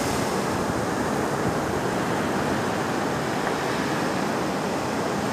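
Ocean surf washing steadily: an even rushing noise that neither breaks nor changes.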